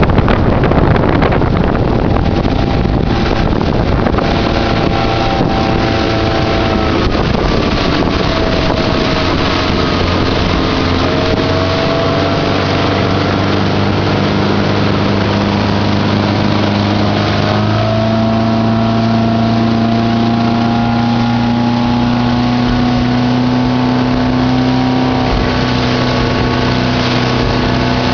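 Motorboat engine running steadily at speed while towing, its pitch drifting slowly, over the rush of the wake. Wind buffets the microphone, hardest in the first few seconds.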